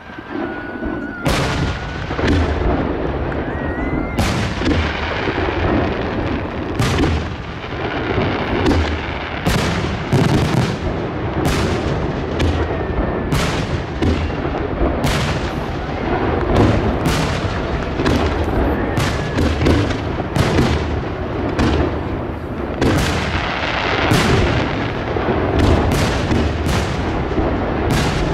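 Aerial fireworks display: shells launching and bursting in rapid succession, loud sharp bangs about one or two a second with barely a gap between them, over a continuous rumble.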